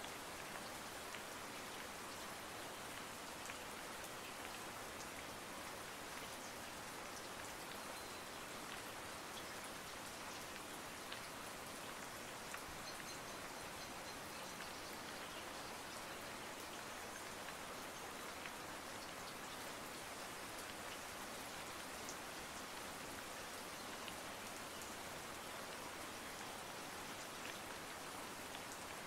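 Steady rain: an even hiss with faint scattered ticks, unchanging throughout.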